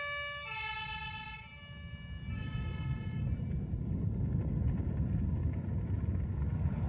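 Sustained music chords that fade out over the first three seconds, giving way to a steady low rumbling noise that holds to the end.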